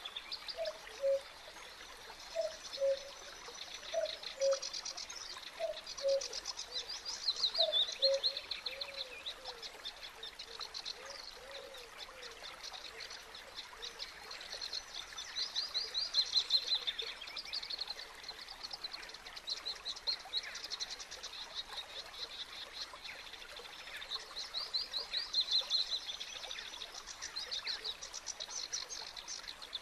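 Small birds singing fast, chattering trilled phrases that come and go in bursts, with a short low note repeated about once a second during the first ten seconds.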